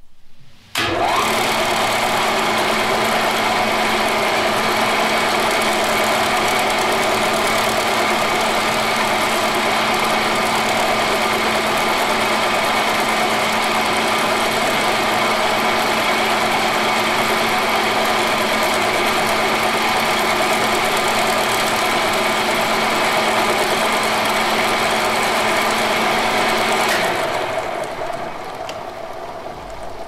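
A machine starts abruptly and runs steadily at one speed, with a constant hum under a dense mechanical rattle. About 27 seconds in, it winds down and stops, leaving a fainter noise.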